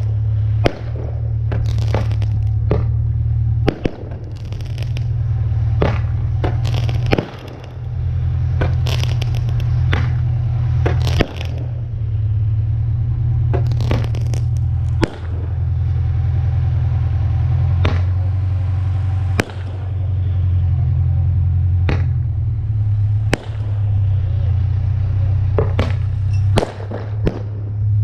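Multi-shot fireworks battery firing: a couple dozen sharp bangs and pops at irregular intervals of about a second, with crackling, over a steady low rumble.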